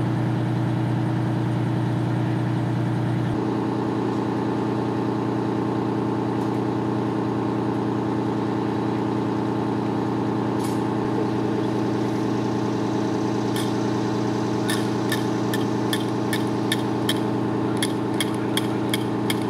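Fire engine idling with a steady low hum. From about two-thirds of the way through, a run of sharp clicks sounds over it, roughly two a second.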